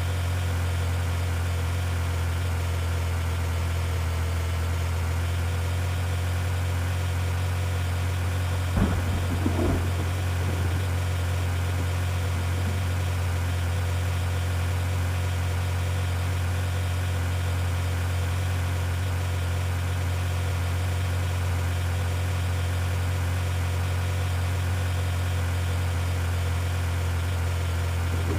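Car engine idling with a steady, unchanging low hum, and a brief knock or rattle about nine seconds in.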